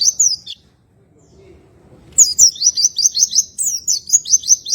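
A white-eye (pleci) singing its rolling 'ngroll tembakan' song: fast runs of high, down-slurred chirps, about six a second. One phrase ends about half a second in, and after a pause two more phrases follow from about two seconds in.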